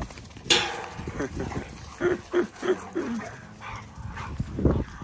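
American Bully puppies play-fighting, barking and yipping: one loud bark about half a second in, then a quick run of about four short yips around two seconds in.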